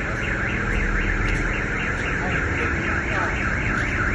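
An electronic alarm siren sounding a fast warble, its pitch sweeping up and down about four to five times a second, over a steady low rumble.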